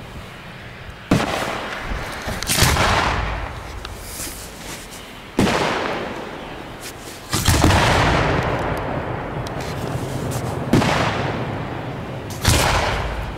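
Aerial firework shells bursting: six sharp booms, irregularly spaced one to three seconds apart, each trailing off over about a second.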